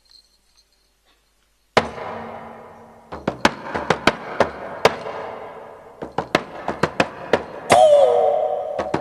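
Shaman-style frame drum struck by hand: one loud beat with a ringing tail, then a run of sharp, uneven beats about three a second. Near the end a loud sustained tone that dips in pitch and then holds joins the beats.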